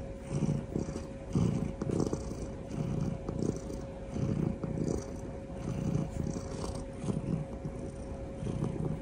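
Domestic cat purring while being held and cuddled, the purr swelling and fading about once a second with each breath in and out.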